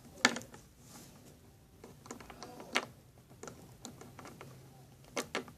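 Scattered light clicks and taps of small hard-plastic Littlest Pet Shop toy figures being handled, picked up and set down, with louder clicks about a quarter second in and near three seconds.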